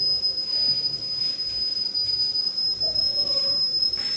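A steady high-pitched electronic whine at one unchanging pitch, over a low background hum, with a few faint clicks.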